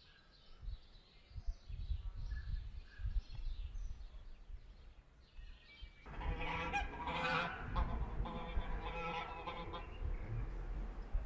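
Wind buffeting the microphone with faint bird chirps, then about six seconds in, geese start honking, loud and repeated, until the end.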